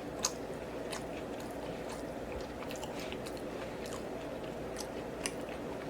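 A person chewing food close to the microphone, with scattered brief wet mouth clicks, over a steady low hum.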